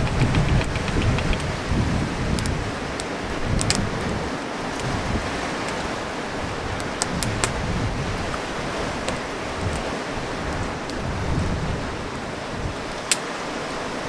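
Steady rush of sea surf and wind, with gusts buffeting the microphone, and a campfire giving a few scattered sharp crackles, one loud pop about a second before the end.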